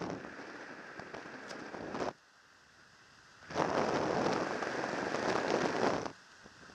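Wind buffeting a helmet camera's microphone under an open parachute canopy: rough, crackling gusts that start and stop abruptly, one about two seconds long at the start, a longer one from about three and a half seconds in, and another beginning right at the end.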